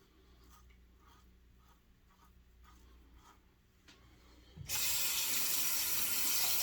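Faint short scraping strokes of a safety razor through lathered stubble, then about two-thirds of the way in a tap is turned on and water runs steadily into the sink.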